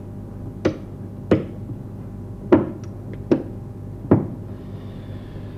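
Five sharp knocks on a hard surface, about one every 0.7 seconds, with a couple of faint clicks between the third and fourth, over a steady low hum.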